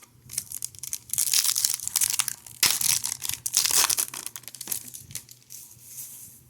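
A trading-card pack wrapper being torn open and crinkled by hand: a run of crackling rustles, loudest in the middle few seconds.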